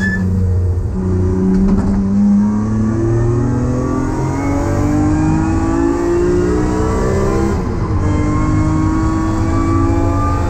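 BMW E30's swapped-in S54 3.2-litre straight-six engine accelerating hard, heard inside the cabin. Its pitch climbs steadily, drops sharply at an upshift a little under three-quarters of the way through, then climbs again in the next gear.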